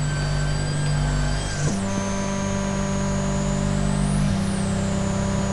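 Electronic oscilloscope music played aloud from a computer: a low buzzing synthesized tone with many overtones that steps up in pitch about a second and a half in. Over it, high whistling tones glide up and back down near the middle. This same stereo signal is drawing the moving figures on the XY oscilloscope.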